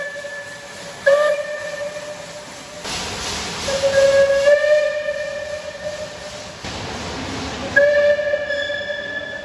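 British steam locomotive whistle blown on one steady note in several blasts: one ending about a second in, a short blast right after, a longer blast of about three seconds from about four seconds in, and another near the end. A hiss of steam runs under them.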